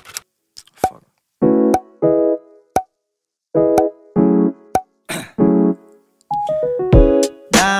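Intro music: short keyboard chord stabs separated by brief pauses, with a few sharp clicks and a quick whoosh between them. Near the end the music runs on without pauses and a deep bass beat comes in.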